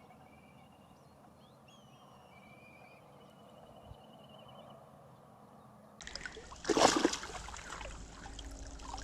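Quiet pond ambience with faint bird chirps. About six seconds in the sound changes abruptly to water splashing and trickling, with one louder splash shortly after.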